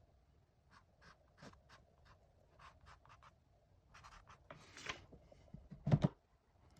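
Paintbrush strokes on an oil painting: a run of short scratchy dabs, then a longer drawn stroke, and a dull thump about six seconds in.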